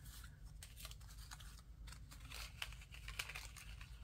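Faint rustling of a stack of die-cut paper cutouts being leafed through by hand, with scattered light ticks as paper edges flick past each other.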